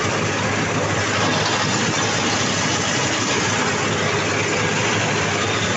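Tractor engine running steadily under load as it pulls a mulcher, with the even rush of the mulcher's rotor chopping straw.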